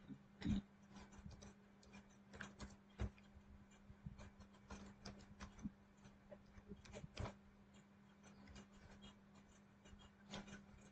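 Faint, irregular clicks of computer keyboard keys being typed, a few keystrokes at a time, over a low steady electrical hum.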